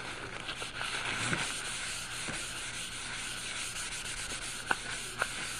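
Crumpled brown paper rubbed back and forth over a coloured-pencil drawing on a colouring-book page, buffing the pencil colour: a steady scratchy rubbing. Two short clicks about half a second apart near the end.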